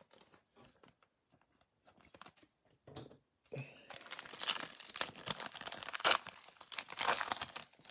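Foil trading-card pack wrapper being torn open and crinkled. A few faint handling clicks come first, then a dense crackling tear from about three and a half seconds in, loudest near the end.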